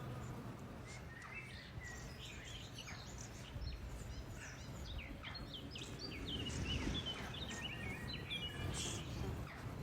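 Songbirds chirping and singing in quick, overlapping short phrases, busiest in the middle of the stretch, over a low outdoor rumble.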